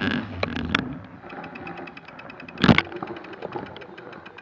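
Mountain bike riding over a snowy trail: rolling rumble and rattle, with a sharp knock a little past halfway. Through the second half there is a fast, even ticking from the rear hub while coasting.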